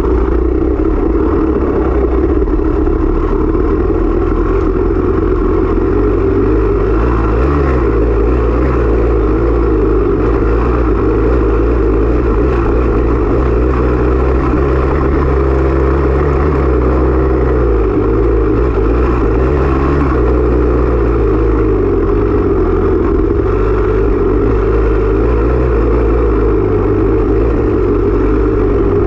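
Off-road dirt bike engine running hard under a rider, its revs rising and falling as it is ridden through the course, heard close up from an onboard camera.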